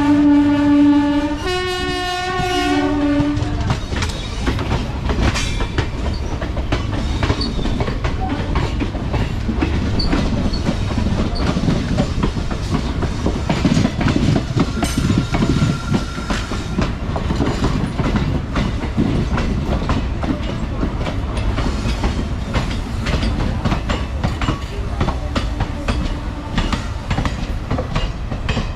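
A locomotive horn sounds at the very start and again in a longer blast about two seconds in. Then comes the steady rumble and clatter of wheels on rail joints as two passenger trains pass close on adjacent tracks, heard from the open doorway of a moving coach.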